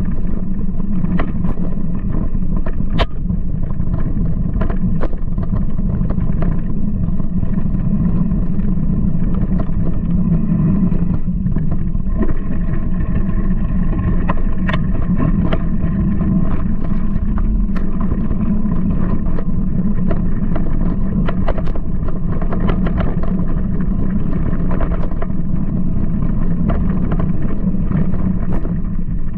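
Mountain bike rolling along a dirt trail: a steady low noise of tyres on the ground and air rushing past, with frequent clicks and knocks as the bike rattles over bumps.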